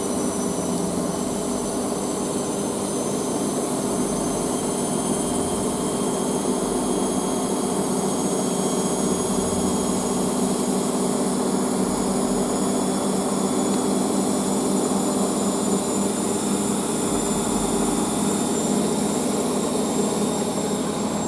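Beko WM6143S washing machine on its spin cycle: the drum motor running steadily at speed, a constant drone with high whining tones that drift slowly in pitch.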